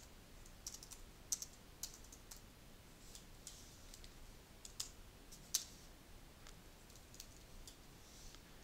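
Faint typing on a computer keyboard: a dozen or so sharp keystrokes at irregular intervals.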